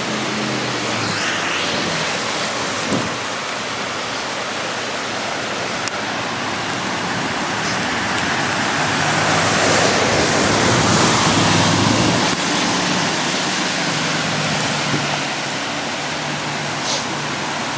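Cars driving through deep floodwater on a city street: a steady hiss of water and tyre spray under a low engine hum. A louder swell of splashing rises and falls about nine to twelve seconds in as a vehicle ploughs through the water close by.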